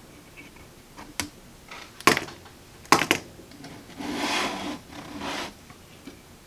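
Hand tools and wiring being handled in a radio chassis during capacitor replacement: a few sharp clicks, the loudest about two and three seconds in, then two short spells of rubbing and scraping.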